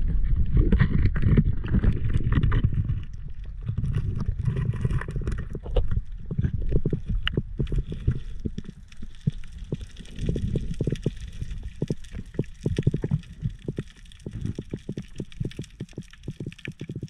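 Muffled underwater sound picked up through a diving camera: a low rumble of water moving around the diver, loudest in the first three seconds, with many small clicks and knocks throughout.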